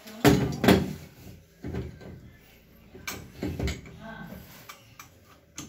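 Chrome wall mixer body knocking and clunking against its wall fittings as it is handled and lined up on the mixer legs: a series of sharp knocks, the two loudest less than half a second apart early on, then several lighter ones.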